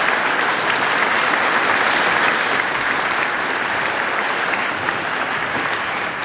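Large audience applauding steadily, the clapping slowly dying away near the end.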